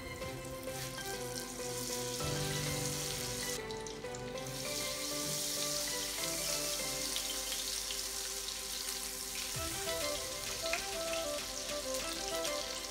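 Steak sizzling as it sears in a hot frying pan, the hiss growing stronger about four seconds in, under background music.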